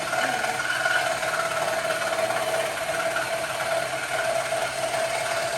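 Electric scroll saw running steadily with a constant whine, its reciprocating blade cutting through wood.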